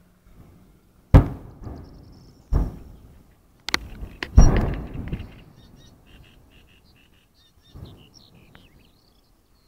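A series of distant explosions: five sharp bangs, each trailing off, the loudest about a second in and about four and a half seconds in, the last and weakest near eight seconds. Birds chirp in the quieter stretch after them.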